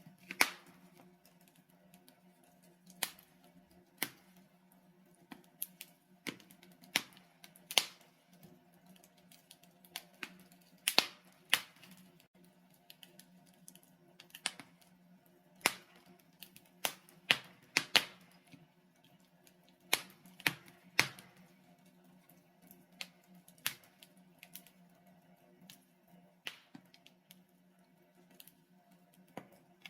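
Wood fire of burning logs in a fireplace crackling, with sharp pops at irregular intervals, about one or two a second, over a faint steady low hum.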